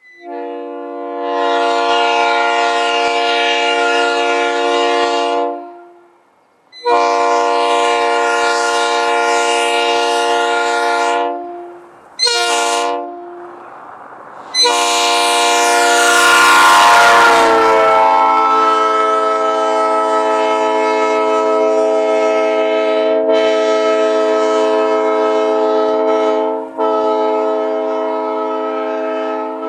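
Nathan P3A three-chime locomotive air horn sounding its chord: two blasts of about five seconds, a short toot, then one long blast whose pitch slides down a little about two seconds in before holding steady.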